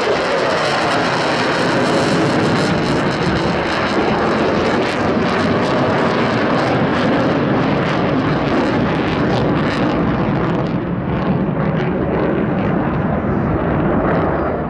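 Loud, steady jet engine noise from Blue Angels jets flying past. The high end dulls over the last few seconds before it cuts off suddenly.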